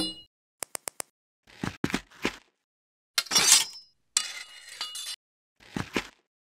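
Stop-motion sound effects, each short and separate: a quick run of four clicks, a few thuds, then a loud clinking crash followed by about a second of clattering with a metallic ring.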